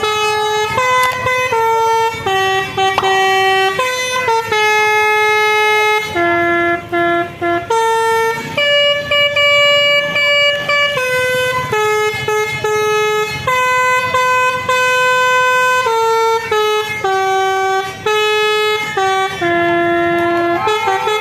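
Basuri telolet bus horn, a multi-tone musical air horn, playing a tune of held notes that step from one pitch to the next.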